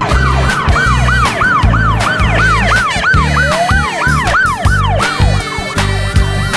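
Siren yelping in quick arched swoops, about three to four a second, fading out near the end, over background music with a steady beat.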